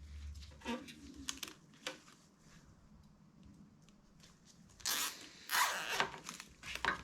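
Plastic cable ties being handled and pulled through their ratchets, with two zipping rasps about five and six seconds in after some faint handling rustles.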